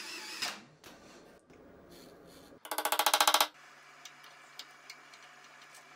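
Cordless drill boring out a broken bolt in a cast-iron drill press head, running briefly at the start. About two and a half seconds in there is a louder burst of just under a second that pulses very rapidly and evenly.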